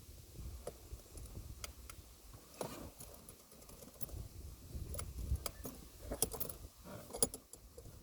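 Light metallic clicks and rattles of a magic arm and clamp mount being handled and tightened, with the sharpest clicks about six and seven seconds in.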